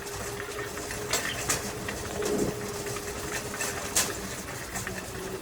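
A steady mechanical hum with a few sharp clicks and knocks scattered through it.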